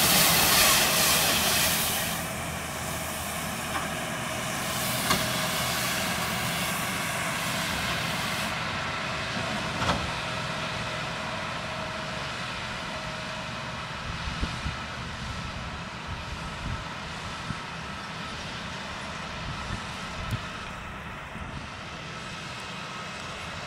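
John Deere tractor pulling a McHale Fusion baler-wrapper through silage, its engine and the baler running steadily, with scattered sharp clicks and knocks. A louder rushing hiss covers the first two seconds.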